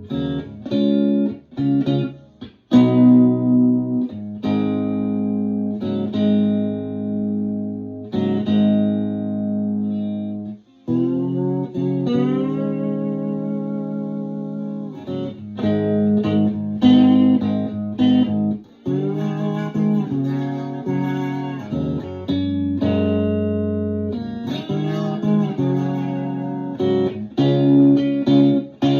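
Open-chamber Telecaster electric guitar played with a slide, picking arpeggios in the key of G. Several notes glide up or bend into pitch, and the notes ring on over a low sustained root.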